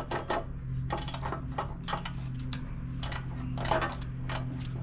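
Irregular metallic clicks and clinks, about a dozen, of a hand tool working a stubborn little screw out of the engine's sheet-metal cooling shroud, over a steady low hum.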